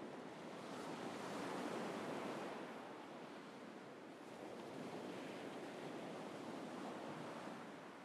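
North Sea surf breaking and washing up a sandy beach in steady rushing swells. The sound builds about a second in and again around halfway through.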